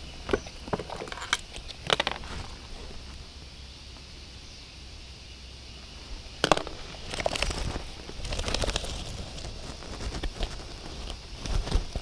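Clicks and crackling plastic as small bottles, tubes and bags of bird-banding gear are handled. The sharpest click comes about halfway through. Underneath runs a steady faint high hiss.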